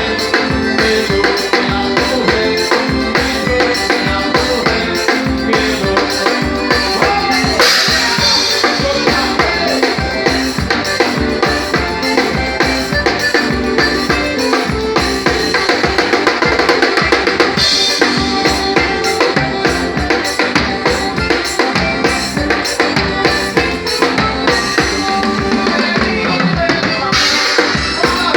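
Live band music driven by a drum kit, with a fast, steady kick-and-snare beat and cymbal crashes about every ten seconds.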